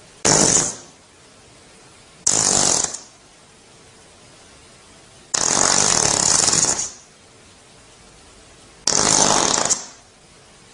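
Four fart sound effects in turn, each a loud burst that starts suddenly and fades out. The first two are short, the third, about five seconds in, is the longest at about a second and a half, and the fourth comes about nine seconds in.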